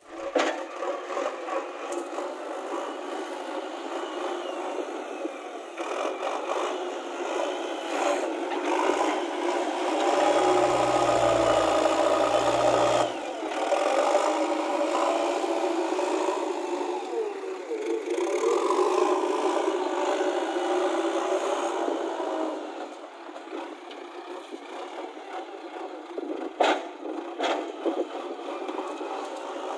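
JCB 3DX backhoe loader's diesel engine working under load, its pitch rising and falling as the loader bucket scoops soil and dumps it into a tipper truck's steel bed. A sharp knock near the end.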